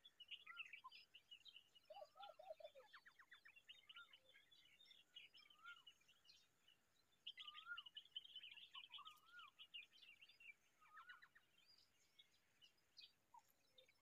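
Faint mixed birdsong: quick high chirping and twittering with repeated short whistled notes. There is a brief run of lower notes about two seconds in, and a denser, louder burst of chirping about halfway through.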